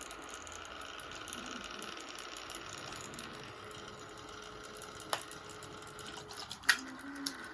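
Faint steady hum with a few sharp clicks in the last few seconds, the clicks from a spray bottle being pressed that won't spray.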